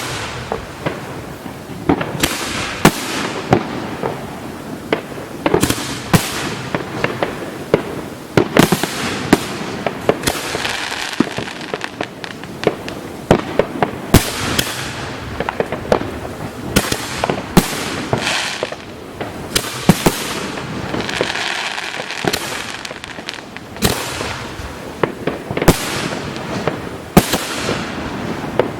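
Professional fireworks display: a rapid, continuous string of sharp bangs, at times several a second, with hissing between the reports.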